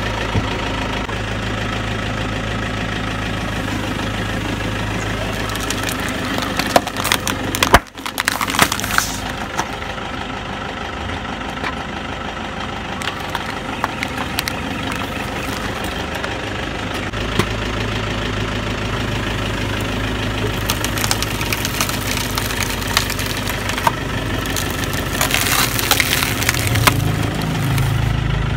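Toyota car engine idling, with cracks and crunches from objects crushed under its tyre: loud sharp snaps about seven to nine seconds in, and a run of crackling near the end as a slab of polystyrene foam is flattened.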